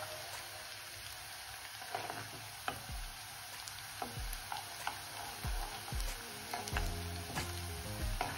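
Chopped onion and garlic sizzling in hot desi ghee in a pan, stirred with a steel spoon that scrapes and clicks against the pan several times.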